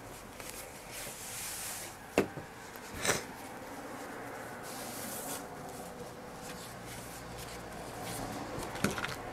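Upholstery fabric rustling and rubbing as it is folded over piping and pinned together by hand, with a few sharp clicks among the rustling.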